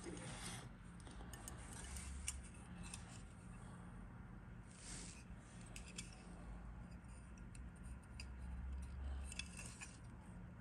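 Faint clicks and rustles of a white styrene model-kit sprue being handled, small plastic parts ticking against each other and the fingers, with a few sharper clicks scattered through.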